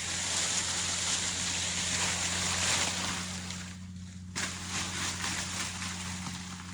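A steady rushing noise that breaks off for a moment about four seconds in, over a low steady hum.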